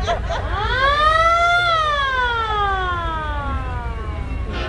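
A siren wails once: its pitch rises for about a second, then falls slowly for about three seconds, over a low rumble of vehicles and wind.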